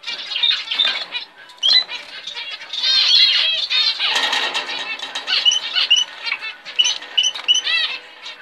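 Many short, high chirps from caged finches, with a burst of splashing and wing-fluttering about four seconds in as a red-throated parrot finch hops into a water dish and bathes.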